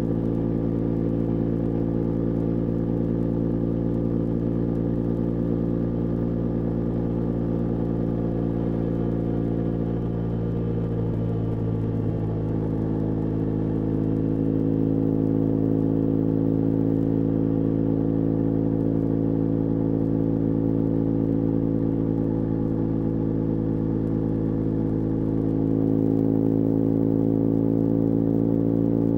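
BMW R1200GS LC Adventure's liquid-cooled boxer twin running steadily under way. Its pitch shifts briefly about a third of the way through, and it gets a little louder near the end.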